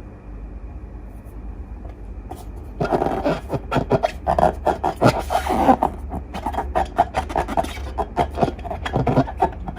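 Slime being worked by hand, with dense sticky crackling, clicking and squelching that starts about three seconds in, after a quiet stretch with only a low hum.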